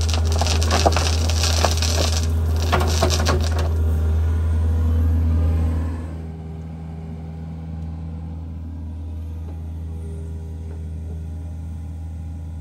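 Mini excavator's diesel engine running steadily while its bucket dumps soil and stones into a trench, with crackling and clattering of falling dirt over the first few seconds. About six seconds in, the engine sound drops in level and carries on more softly at a steady pitch.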